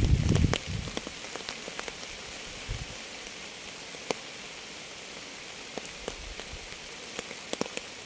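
Steady rain falling on a surface, a soft even hiss with scattered distinct drops ticking, one louder about four seconds in and several close together near the end. A loud low rumble at the start dies away within the first second.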